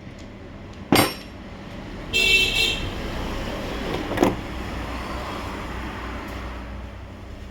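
A vehicle horn gives a short honk about two seconds in, between two sharp metallic knocks, one about a second in and one near four seconds, over a steady low engine rumble.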